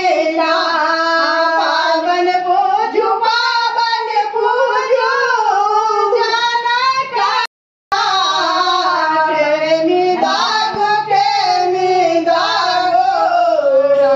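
Women's voices singing a song, with held, gliding notes and no spoken words; the song breaks off briefly about halfway through.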